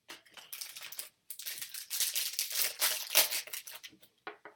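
Foil wrapper of a 2015 Bowman Chrome trading-card pack crinkling and rustling as it is torn open. The crinkling comes in two spells with a short break about a second in, then a few last crackles near the end.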